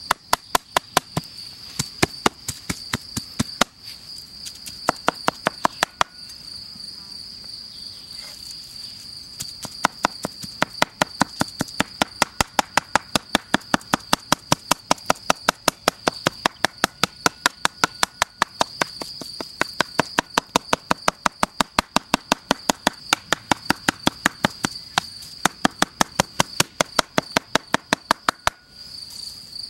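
A large knife chopping raw meat by hand on a wooden cutting board: rapid sharp knocks several a second, with a few short pauses, stopping shortly before the end. Crickets chirp steadily behind it.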